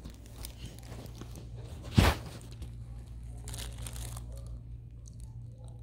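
Rustling and rubbing from a hand-held phone being moved and handled, with one sharp knock about two seconds in, over a steady low hum.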